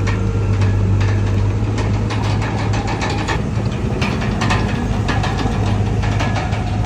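Komatsu D31PX crawler bulldozer's diesel engine running steadily with a deep hum, with irregular knocks and clicks over it.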